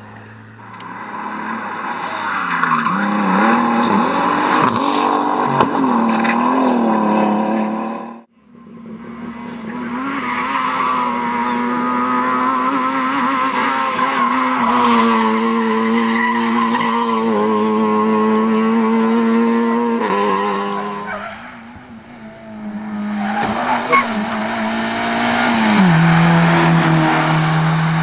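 Rally cars at racing speed, their engines revving hard with rising and falling pitch through gear changes, in several runs that cut off abruptly about eight seconds in and again just past the twenty-second mark. The last run carries a strong hiss of tyre noise over the engine.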